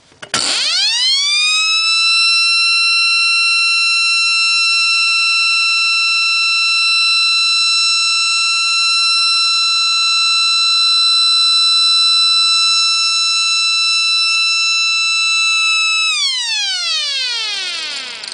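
Vintage door-stop alarm sounding a loud air-raid-siren wail. The pitch winds up quickly just after it starts, holds one steady high tone for about fifteen seconds, then winds down steadily near the end.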